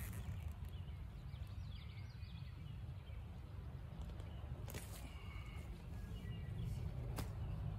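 Faint birdsong chirping in the woods over a low steady rumble, with two sharp snaps, one near the middle and one near the end, as ramp leaves are picked by hand.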